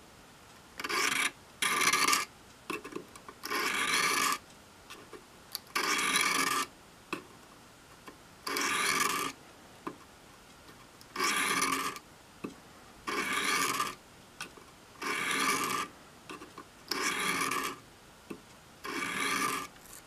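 Craftsman Barlow pocket knife's main blade drawn across the coarse stone of a Smith's Tri-Hone sharpener: ten strokes, each under a second, about one every two seconds. Coarse-grit sharpening that raises a burr on the edge.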